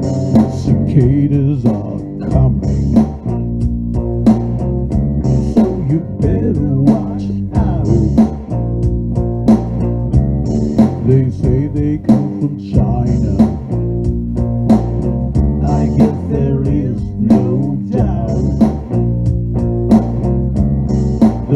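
Instrumental break of a blues-style song: guitar and bass guitar playing over a steady drum beat.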